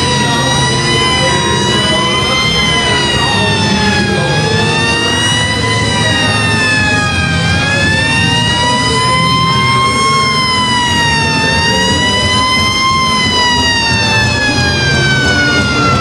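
A wailing siren, its pitch rising and falling in slow sweeps about every three seconds, then falling steadily near the end, over a steady low rumble.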